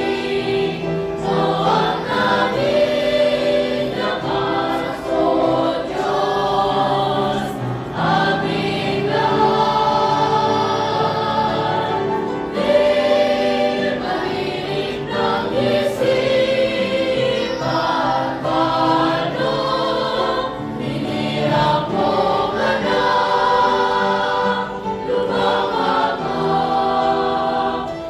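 A church choir of children and adults singing a Tagalog worship song, many voices together.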